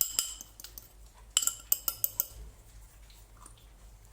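Spoon clinking against a bowl while dry spices and sugar are stirred together. There are a couple of sharp clinks at the start, then a quick run of clinks about a second and a half in, then only faint scraping.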